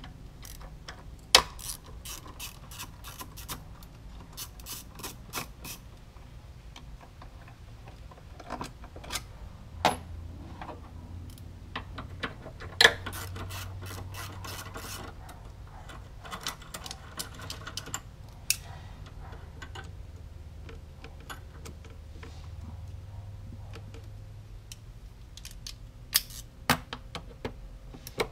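Socket ratchet clicking in irregular runs as a 10 mm socket on a long extension loosens the bolts holding down a car's air intake resonator box, with a few sharp metal clinks of the tools.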